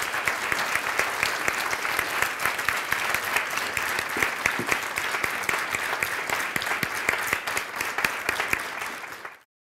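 Audience applause: many people clapping steadily for about nine seconds, then cut off abruptly near the end.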